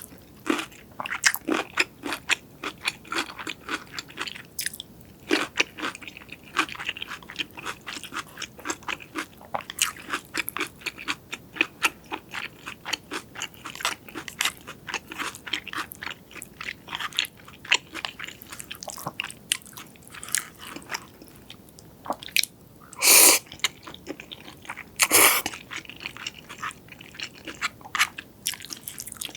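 Close-miked eating sounds: a person biting and chewing crunchy food in many quick, sharp crunches. Near the end come two louder noisy bursts, each about half a second long.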